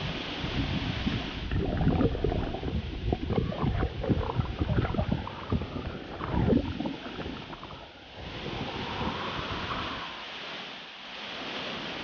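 Steady rush of a small waterfall. From about a second and a half in to about seven seconds, loud irregular splashing and gurgling of water right against the microphone, as the camera is held at the surface of the plunge pool. After that the even rush of the falls returns.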